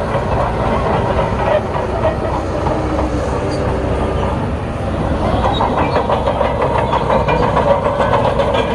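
Bulldozer working: its diesel engine running under load with the steel tracks clanking steadily, getting a little louder about halfway through.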